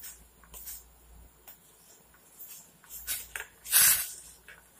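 A spoon stirring vermicelli as it boils in water in a steel pan: a few short swishes and scrapes, the loudest just before the end.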